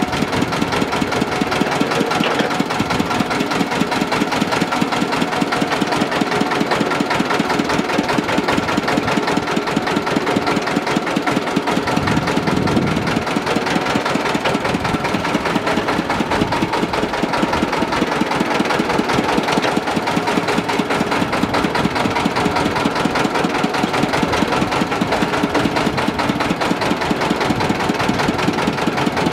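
Diesel engine, a converted generator engine, running steadily with a rapid, even firing beat while it drives a sugarcane crusher's rollers as cane is fed through.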